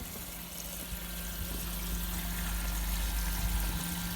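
Koi pond's pumps running: water flowing and splashing over a steady low electrical hum, gradually growing louder.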